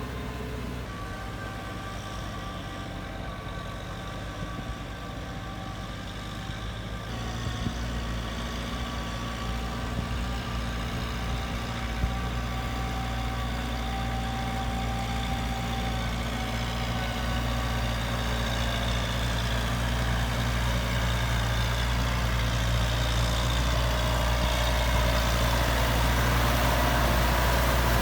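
Tractor engine running steadily while ploughing. Its sound changes about seven seconds in, with the low hum strengthening, and then grows gradually louder.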